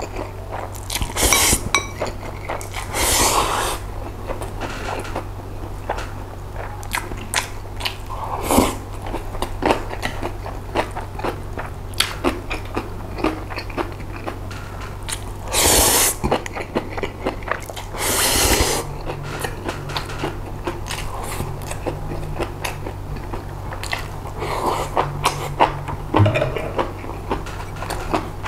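A person eating chewy cold spicy noodles (jjolmyeon) close to the microphone: wet chewing with many small mouth clicks, broken by several long noisy slurps of noodles, the two loudest past the middle. A steady low hum runs underneath.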